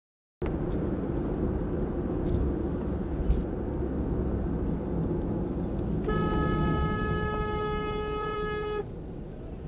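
Steady tyre and wind noise of a car at highway speed, heard from inside the car, starting abruptly about half a second in. From about six seconds in, a truck horn sounds one long steady blast of nearly three seconds as the truck closes in right behind and alongside the car.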